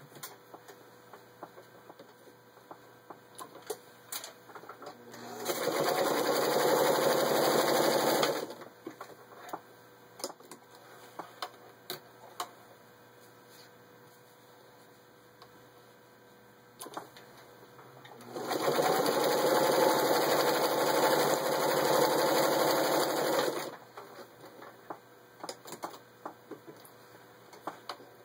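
1954 Singer 221-1 Featherweight sewing machine running steadily at speed, stitching through six layers of denim, in two runs of about three and five seconds. Between the runs there are scattered light clicks and knocks.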